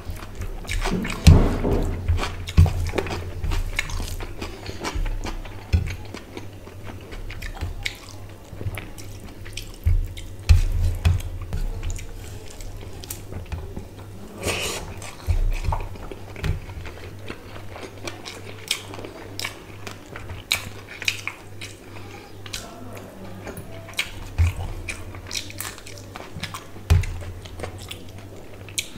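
Eating rice and fish curry by hand from a steel plate: fingers mash and mix the rice against the metal with irregular wet squelches, scrapes and taps, between bouts of chewing and mouth sounds.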